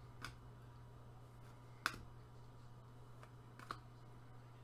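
Trading cards handled with gloved hands as a stack is flipped through: a few short, sharp clicks and taps of card against card, the loudest about two seconds in.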